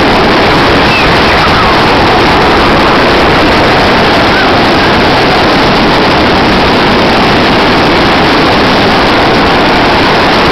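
Loud, steady rushing noise of the open beach, without a break, with a fluttering rumble underneath.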